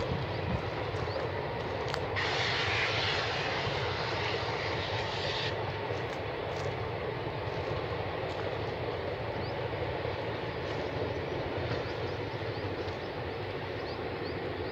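Indian Railways passenger train rolling past, a steady rumble of coaches on the track. A patch of hiss rises over it about two seconds in and lasts about three seconds.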